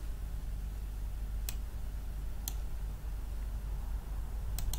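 Computer mouse clicking: a few single clicks about a second apart, then two in quick succession near the end, over a steady low hum.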